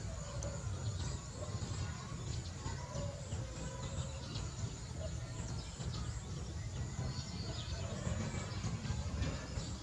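Steady low rumble of wind on the microphone, with faint short chirps and ticks over it.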